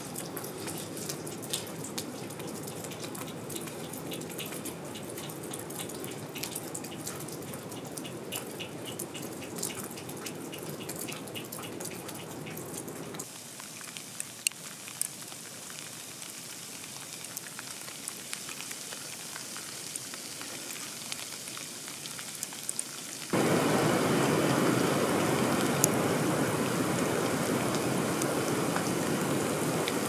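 Rain falling in a bare winter forest, full of small drop ticks at first. It turns quieter about 13 s in, then much louder and steadier about 23 s in.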